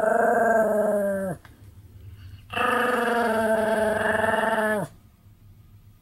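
Pomeranian dog giving two long whining cries, the first about a second and a half and the second about two seconds. Each holds a steady pitch and drops as it ends.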